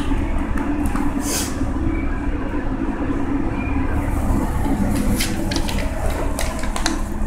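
A steady low mechanical rumble, with a few light clicks and taps in the second half.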